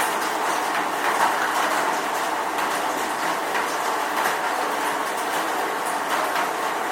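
Steady rain: an even hiss with scattered sharper drops pattering through it.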